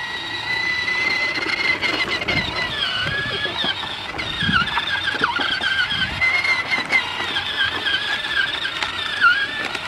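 Electric motor and gearbox of a children's battery-powered ride-on toy ATV whining as it drives. The high whine runs steadily and wavers and dips in pitch as the load changes.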